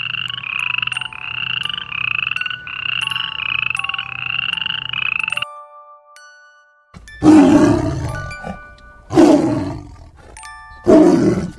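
A quick train of frog-like croaks, about two a second, runs for roughly the first five seconds. After a short gap a tiger roars three times, about two seconds apart; these roars are the loudest sounds. Light chime notes ring throughout.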